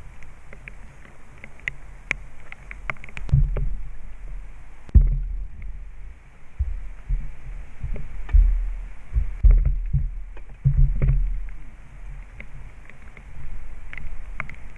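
Gusty wind buffeting the microphone in uneven low rumbles, with the strongest gusts about five, eight and eleven seconds in. Scattered light ticks and taps run through it, most of them in the first few seconds.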